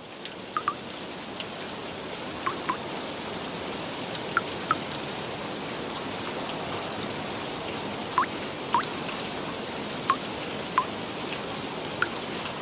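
Steady rain that swells in over the first second or two. Over it come louder single drops plinking, in pairs every two seconds or so.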